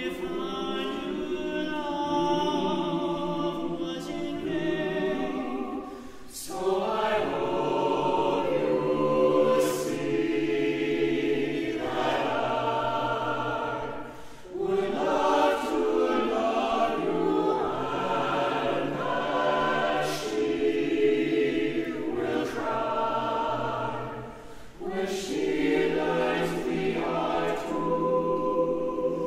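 Mixed-voice chamber choir singing a cappella in close harmony, recorded live in concert. The phrases run on, with a brief breath between them three times.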